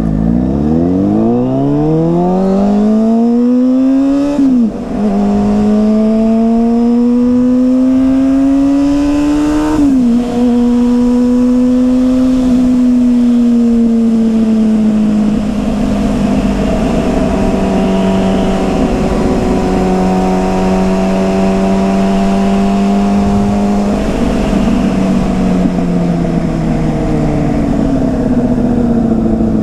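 2009 Yamaha Fazer 600's inline-four engine with a WR slip-on exhaust, heard while riding. It revs up hard, drops in pitch at a gear change about four and a half seconds in, and climbs again. After a second shift at about ten seconds it settles into a steady cruise that eases off slightly near the end, with wind rush underneath.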